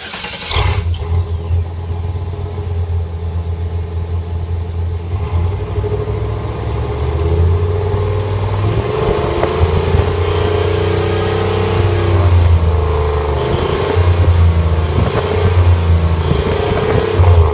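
Truck engine running at the tailpipe and revved several times, with exhaust blowing through two novelty turbo exhaust whistles stuck in the pipe. A wavering whistle-like tone rises and falls with the revs over a deep exhaust rumble.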